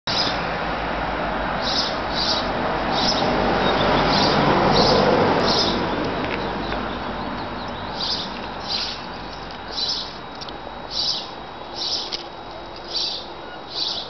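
A small bird chirping over and over, short high chirps about once a second. Under it is a rustling hiss that is loudest in the first few seconds and then fades.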